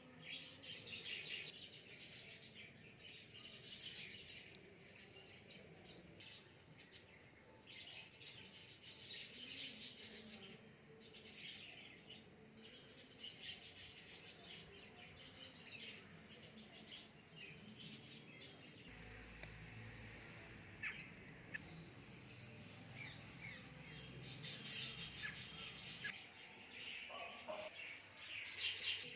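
Birds chirping and calling in repeated bursts, with a low rumble in the middle of the stretch.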